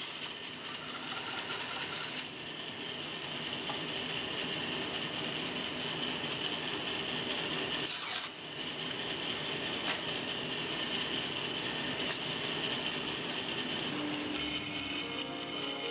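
Band saw running and cutting through a wooden cup blank: a steady high whine with the hiss of the blade in the wood. Music comes in near the end.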